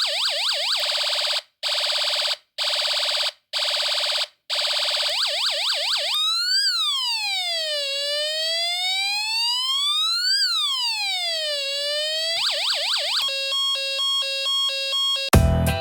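Homemade electronic police-siren circuit sounding through a small speaker and cycling through its tones. First comes a fast yelp of quick rising sweeps, with a steady tone that cuts out four times. Then a slow wail falls and rises over about two seconds each way, more quick sweeps follow, and then a run of stepped electronic beeps.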